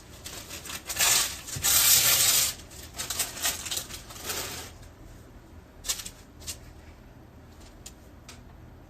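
Rustling, loudest for about a second and a half starting about a second in, followed by a few short, light clicks near the end.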